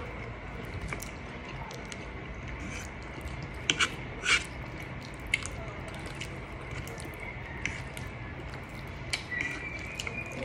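Close-miked eating sounds: wet chewing, lip smacks and clicks as fried chicken wings are bitten and chewed, with a cluster of sharper smacks about four seconds in. A faint steady high-pitched tone runs underneath.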